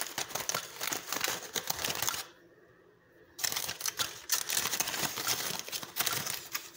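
Aluminium foil crinkling and crackling as it is pulled open from around roasted ears of corn, in two spells with a pause of about a second in between.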